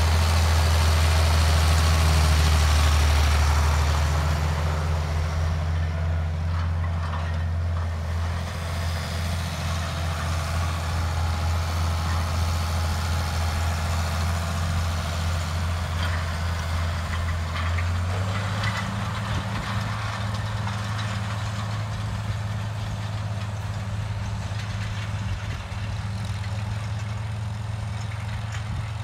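International 1566 tractor's turbocharged six-cylinder diesel running steadily under load as it pulls a roller mulcher past. It is loudest in the first few seconds and eases as the tractor moves away. About two-thirds of the way through, the steady engine note shifts to a slightly higher, weaker drone.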